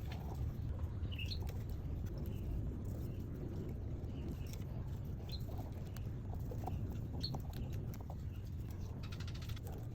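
Steady low background rumble, with faint short high chirps about every two seconds and scattered light clicks over it.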